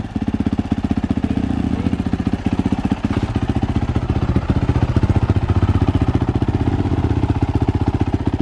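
2019 Kawasaki KX450 single-cylinder four-stroke dirt bike engine idling steadily with a rapid, even beat, warming up before riding.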